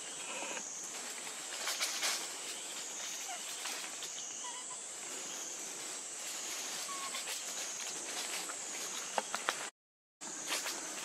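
Forest ambience: a steady high insect drone, with scattered rustles and clicks and a few faint short chirps. The sound cuts out for about half a second near the end.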